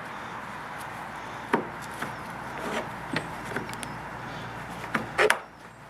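Door-hinge pin being worked down into the new bushings of a Jeep Grand Cherokee's lower door hinge: scattered short knocks and clicks, the loudest near the end, as the pin binds going in.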